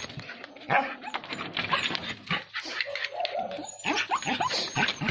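A dog barking and yelping in quick, short calls as it attacks a cornered wild cat.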